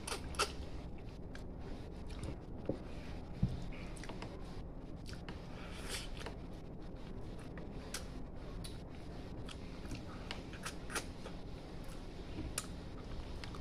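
Close-up eating sounds: sticky, wet clicks and smacks of fingers pulling apart braised pork head adobo and of open-mouthed chewing. The clicks come many times, quick and irregular.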